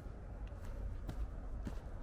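Footsteps on a dirt forest trail at walking pace, a few soft steps with light scuffs, over a low steady rumble.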